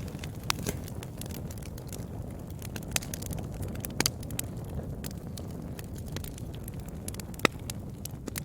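Wood fire burning with a steady low rumble and scattered sharp crackling pops, a double pop about four seconds in and the loudest pop near the end.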